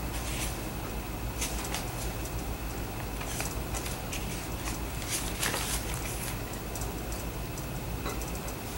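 Room tone: a steady low hum with hiss, and a few faint scattered ticks and rustles.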